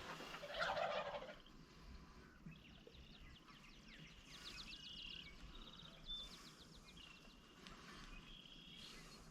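Wild turkeys gobbling faintly, quick rattling calls repeated through the middle, with a louder burst of sound in the first second.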